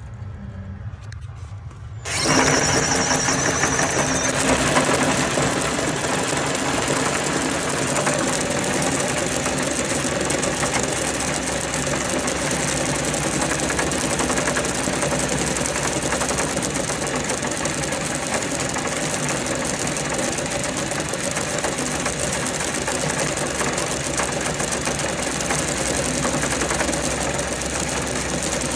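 Power drill starts about two seconds in and runs at a steady speed, spinning a tank cleaner's cable inside a water heater to break up sediment while water flushes out the drain. A brief high whine sounds as it starts.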